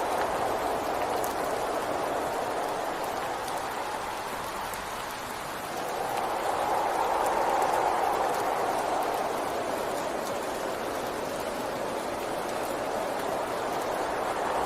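Steady rain falling, a dense even hiss with faint scattered drop ticks; it eases slightly a few seconds in and swells again about halfway through.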